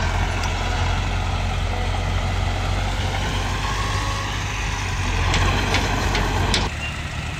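Diesel engine of a Komatsu D20A crawler bulldozer running steadily under load as it pushes broken rock, with a few sharp knocks of stone between about five and six and a half seconds in. The engine sound drops away abruptly shortly before the end.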